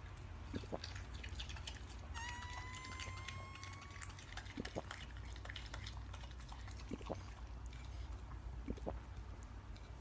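Cartoon rat sound effects: scattered soft clicks over a low hum, with one drawn-out squeak about two seconds in that rises slowly in pitch for nearly two seconds.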